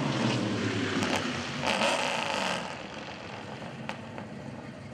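A car engine running, its pitch falling steadily through the first second and a half, with a short rush of noise around two seconds in, after which it fades.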